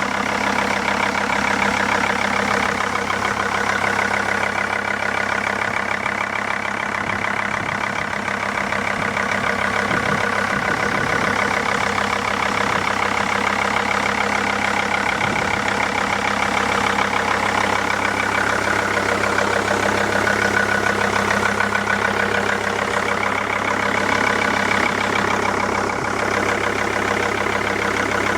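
Mercedes-Benz W211 engine idling steadily with a rapid, even knocking tick running through it: the knock the owner is trying to trace.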